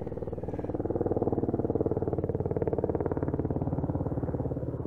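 Helicopter flying overhead, its rotor chopping in fast, even beats, loudest about two seconds in and easing slightly after.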